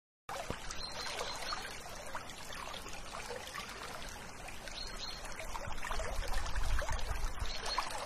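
Running water of a small stream, trickling and bubbling steadily, getting somewhat louder about six seconds in.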